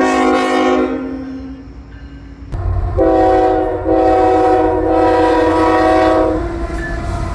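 Train horn sounding several tones together: a blast at the start that fades away over about two seconds, then a short blast and a long one of about three seconds. The low rumble of a moving train runs underneath.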